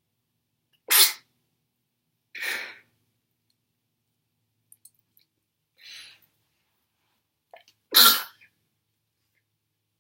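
A young woman sneezing in a fit: sharp, loud sneezes about a second in and again near the end, a softer sneeze about two and a half seconds in, and a faint breathy sound in between.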